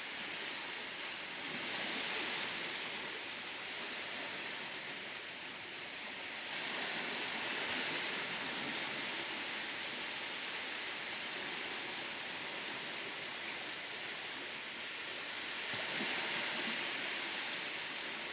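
Ocean waves washing ashore, a steady hiss of surf that swells louder three times as bigger waves break.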